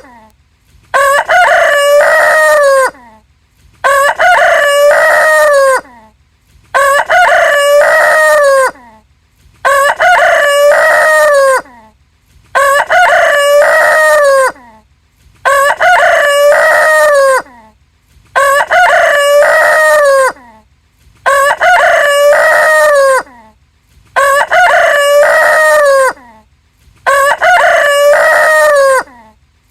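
A rooster crowing cock-a-doodle-doo, the same crow repeating about every three seconds: ten loud crows of about two seconds each, with short pauses between.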